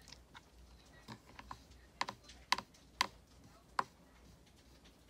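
About a dozen light, sharp clicks and taps at uneven intervals, the loudest coming between two and four seconds in.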